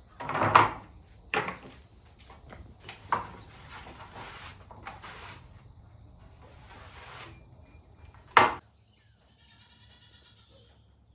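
Several harsh animal calls, each a short burst: the loudest about half a second in and one more just after 8 seconds, then the sound cuts off abruptly.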